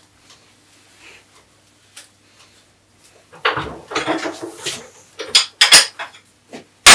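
Clinking and scraping of a WP AER 48 motorcycle fork leg being handled and put back together, starting about halfway through, with a sharp knock near the end.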